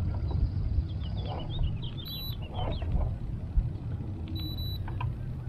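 Small birds chirping quickly over a steady low rumble, with two short electronic beeps about two seconds apart.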